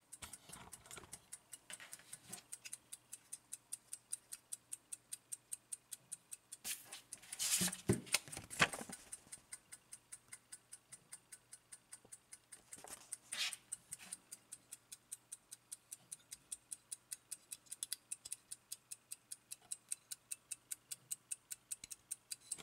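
Platform escapement of a Soviet navy ship's wall clock movement ticking fast and evenly, about five ticks a second. Twice the ticking is joined by louder rustling from handling, the longer patch about a third of the way in.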